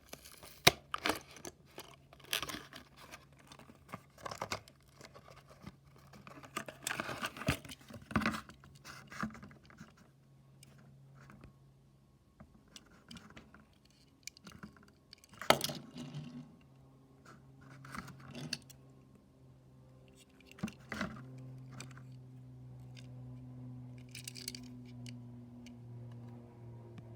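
Hot Wheels blister packaging being handled and opened: plastic and card crinkling, tearing and clicking in a string of short sounds, busiest in the first half. A low steady hum runs underneath from about halfway.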